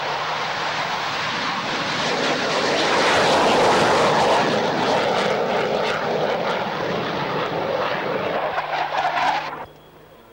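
Jet fighter taking off on afterburner: a loud jet roar with crackle, swelling for a few seconds as it climbs away, then cut off suddenly near the end.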